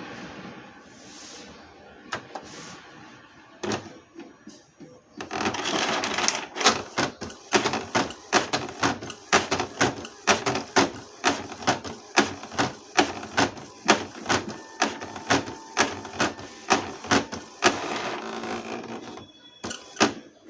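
Epson L-series inkjet printer running its mechanism with a rapid run of sharp clacks, about two a second, over a grinding mechanical noise. It starts about five seconds in after a few separate clicks and stops shortly before the end. This is the loud noise of the fault where the print head carriage does not move.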